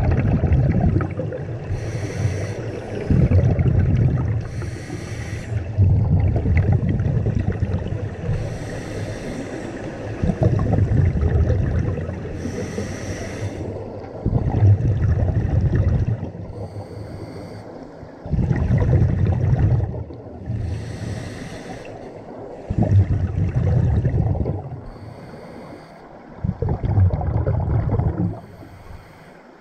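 Scuba diver breathing through a regulator: a short hiss on each inhale, then a longer rumble of exhaled bubbles, repeating about every four seconds.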